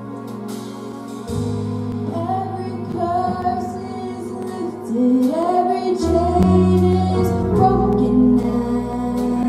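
A girl's solo voice singing a slow song into a microphone over an accompaniment of held chords and bass notes. The voice comes in about two seconds in, after the accompaniment alone, and the music grows louder around the middle.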